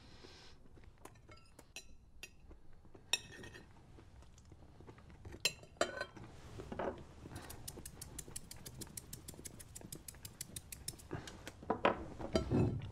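Knife and fork clinking and scraping on a china dinner plate as a man eats, with scattered sharp clicks and a fast run of light ticks for a few seconds in the middle. Duller chewing sounds come near the end.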